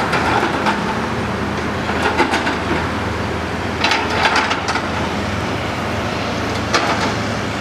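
Steady outdoor machinery and vehicle noise with a low hum, broken by short clusters of knocking and clattering about two, four and seven seconds in.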